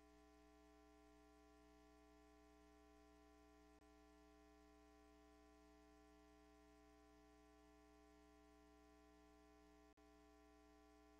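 Near silence: a faint steady electrical hum, cutting out briefly once near the end.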